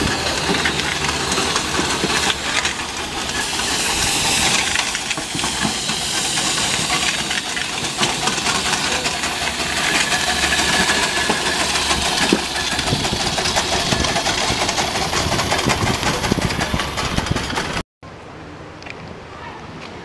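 Miniature steam traction engine driving past with a loud, steady hiss of steam. The sound cuts off abruptly about eighteen seconds in, giving way to a much quieter background.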